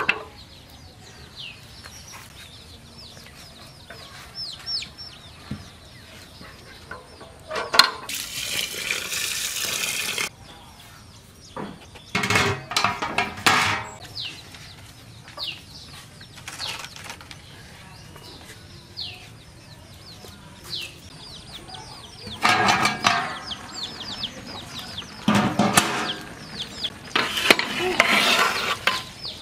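Birds chirping over and over with short falling calls, among outdoor cooking noises: a rushing hiss for about two seconds near the start, then several bouts of clattering from the metal pot and its ladle.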